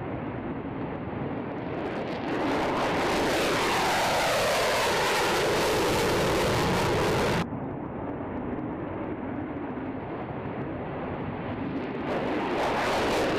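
F-35A Lightning II fighter jet taking off and climbing in afterburner. Its jet noise swells about two seconds in with a downward-sweeping whoosh as it passes. The sound cuts off abruptly about seven seconds in to a quieter rumble, and swells again with the same falling sweep near the end.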